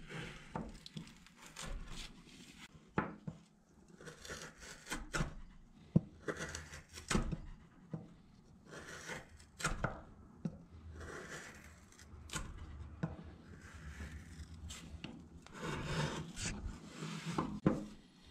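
A sharp Beavercraft hook knife carving out a small wooden bowl: a string of irregular slicing and scraping cuts through the wood, with sharp clicks between strokes.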